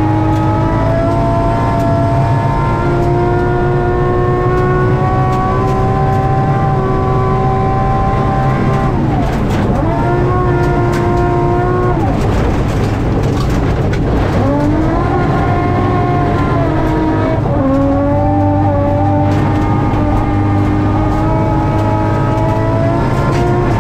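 BMW M3 rally car's engine heard from inside the cabin, running hard at high revs on a gravel stage; its pitch drops and climbs back several times at gear changes and lifts off the throttle. Constant road and gravel noise from the tyres underneath.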